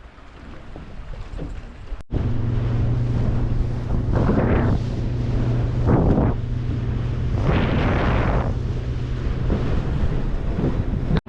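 Boat engine running steadily, with gusts of wind buffeting the microphone and surges of water noise. The first couple of seconds are quieter, then the hum comes in abruptly at a cut.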